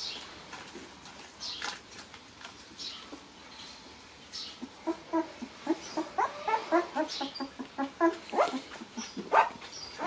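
Young puppies whining and yipping. A few thin squeals come first, then from about halfway a quick run of short, high-pitched calls, with the loudest call just before the end.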